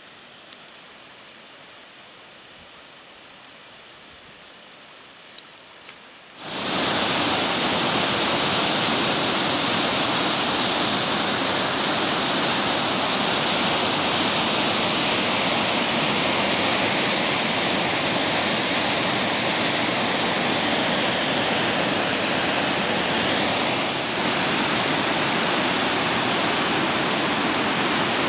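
Faint hiss with a few tiny clicks, then, about six seconds in, an abrupt jump to the loud, steady rush of a waterfall close by, which dips slightly near the end.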